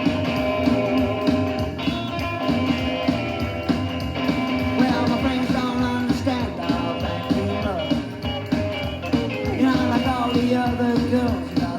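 Psychobilly rock instrumental break: electric guitar over bass and drums with a steady beat, with sliding guitar bends in the second half.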